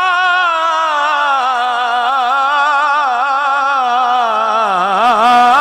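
A man's solo voice singing a naat, holding one long sung note with a wavering vibrato. The pitch dips about four and a half seconds in, and a new phrase begins near the end.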